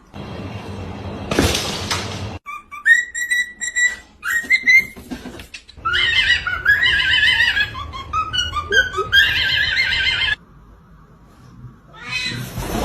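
A small bird's high chirps and squawks in quick runs, after about two seconds of rustling noise.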